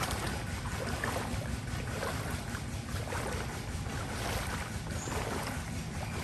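Steady low rumble with wind on the microphone, and water sloshing or splashing about once a second, as when moving through floodwater.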